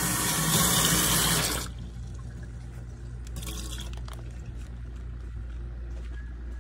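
Tap water running from a kitchen faucet into a plastic cup held in a stainless steel sink, the rush of water stopping abruptly about a second and a half in. A low steady hum carries on afterwards.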